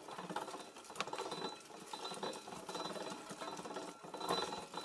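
An old-fashioned coffee pulping machine running, its gears clattering while coffee cherries rattle through the perforated drum and the pulped beans spill out of the chute. It makes a dense, rapid rattle, with a sharp click about a second in.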